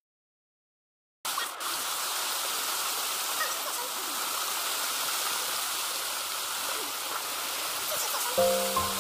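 Steady rush of a waterfall's falling water, cutting in suddenly about a second in after silence. Music tones come in near the end.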